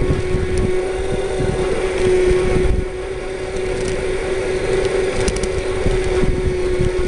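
Electric cart driven by a fresh, unstressed 24-volt 450-watt motor, running under load with a steady whine over tyre and wind rumble. The sound eases off slightly about three seconds in.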